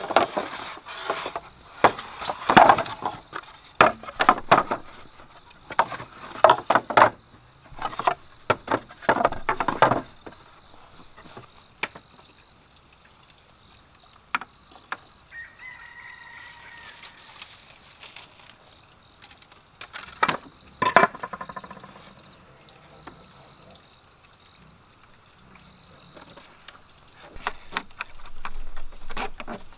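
Bamboo poles knock and clatter against each other as they are picked up and laid down, with many sharp hollow knocks in the first ten seconds. About twenty seconds in, a rooster crows once. Near the end comes a scraping rustle as a thin bamboo strip is wound around the poles to lash them.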